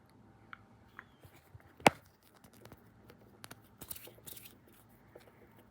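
Small plastic backpack snapped off a vinyl Funko Pop figure: one sharp snap about two seconds in, amid quiet clicks and rustles of the figure being handled.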